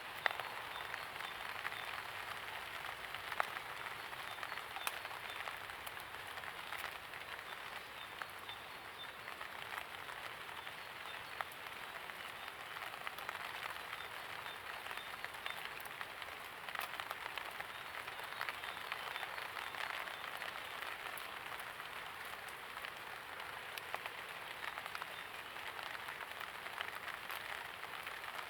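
Steady light rain falling, with many individual drops heard as small sharp clicks over an even hiss.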